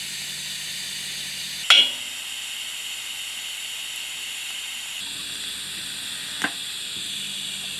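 TIG welding arc burning steadily on thin-wall carbon steel tubing, a continuous hiss, with two sharp clicks, one about a second and a half in and one about six and a half seconds in.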